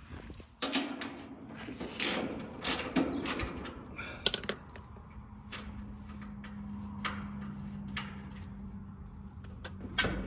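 Sheet-metal service panel of a Carrier outdoor AC condenser being worked loose and lifted off: a run of metallic clicks, knocks and scrapes, busiest in the first half. A steady low hum comes in about halfway through.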